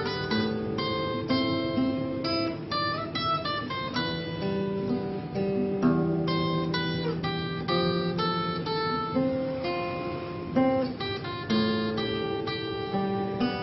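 Acoustic guitar playing a melody note by note over lower bass notes.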